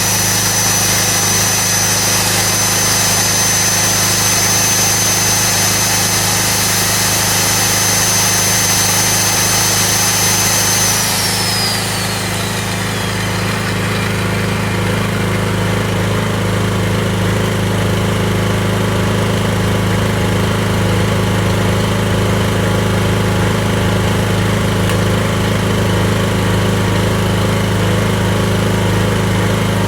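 Briggs & Stratton generator's engine running steadily, powering an electric tool whose high whine and hiss run until about 11 seconds in. The whine then winds down as the tool is switched off, and the engine runs on alone.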